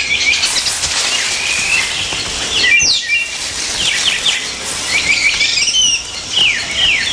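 Rainforest bird chorus: many short, high chirps and falling calls over a steady high hiss, with one louder rising call about three seconds in.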